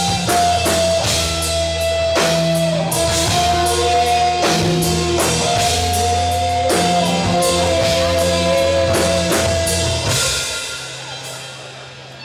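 Rock band playing live, drum kit and guitar, with a steady beat and sustained guitar notes. About ten seconds in the drums stop and the last chord rings out and fades.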